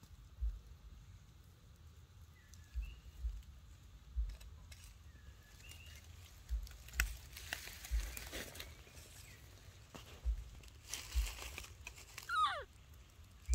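Dry leaf litter rustling in short bursts over soft, irregular low thumps, with faint high chirps. Near the end comes a short high call that falls steeply in pitch.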